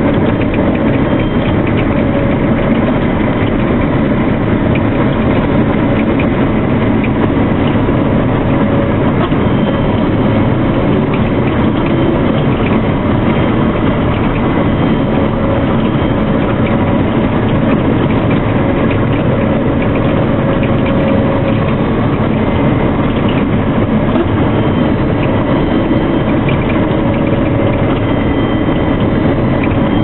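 CLAAS Lexion 520 combine harvester running under load while cutting and threshing barley, heard from inside the cab: a loud, steady mechanical clatter of engine and threshing machinery with a few faint steady tones in it.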